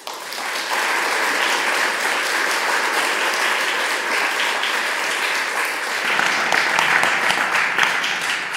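Audience applauding, many hands clapping at once; it swells within about a second and then holds steady.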